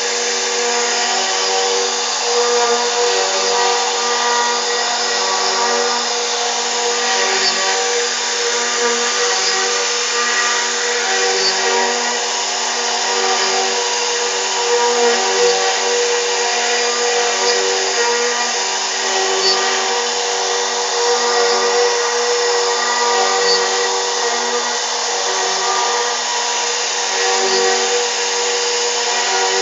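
CNC router spindle running steadily with a high whine as it carves wood, with a low pulse about every two seconds as the tool moves back and forth across the work.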